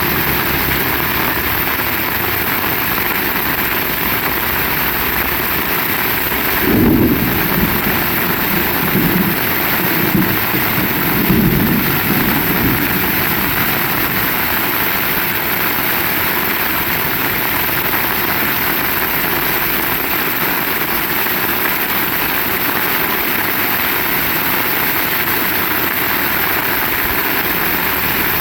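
Heavy rain falling in a steady hiss. A low rumble rises and falls a few times between about seven and thirteen seconds in.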